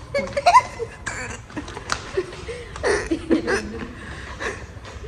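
People giggling and laughing in short, breathy bursts.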